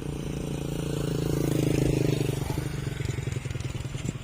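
An engine running steadily. It grows louder to a peak about halfway through and then fades into a steady beat of firing pulses.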